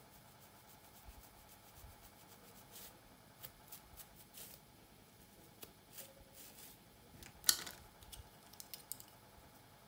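Yellow fine-tooth plastic comb scraping and parting through thick hair: a scatter of short, crisp scratches and ticks, the loudest about three-quarters of the way in.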